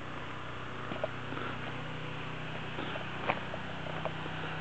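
A few light knocks and one sharp click about three seconds in, from work on a wooden deck frame, over a steady low hum.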